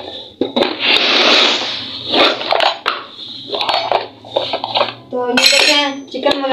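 Steel pots, a lid and utensils clattering and clinking in a run of short knocks, with a brief voice about five seconds in.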